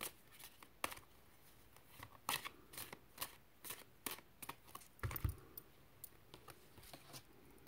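Tarot cards being handled and laid down on a table: a scatter of faint, light clicks and flicks, with a soft thump about five seconds in.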